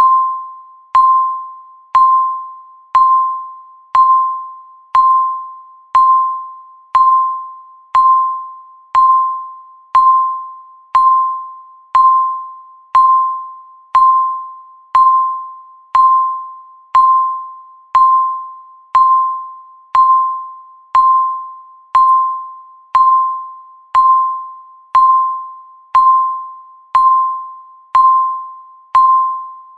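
Countdown timer beep sounding once every second: a single pitched tone that starts sharply and dies away before the next.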